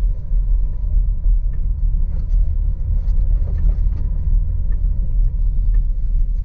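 Low rumble inside a Škoda Karoq's cabin as it rolls slowly over a rough field track, with faint scattered ticks and creaks from the interior trim on the right side.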